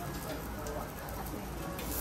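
Light clicks of a chef's knife and spatula on a steel teppanyaki griddle as an onion is cut, over a steady low hum and faint voices.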